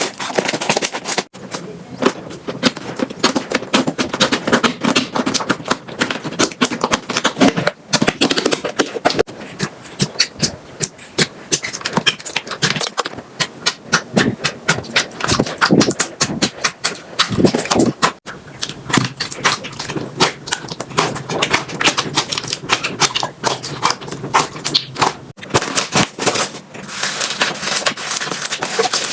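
Slime being squeezed and pressed by hand, a dense run of wet clicking and popping, broken by short gaps three times.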